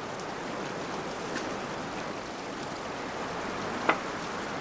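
Steady rush of a shallow stream running over rock, with a single sharp tap about four seconds in.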